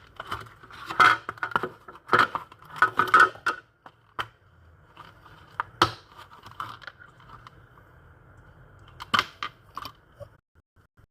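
Earphone packaging and earphones being handled: irregular clicks, rustles and crinkles of plastic and cardboard, busiest in the first few seconds and again near the end, over a faint steady hum.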